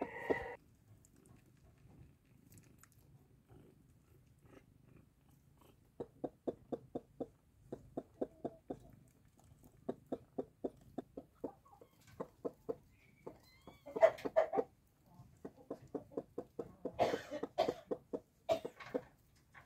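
A hen clucking softly in runs of short, even clucks, about five a second, with a few louder, sharper animal sounds about two-thirds of the way through and near the end.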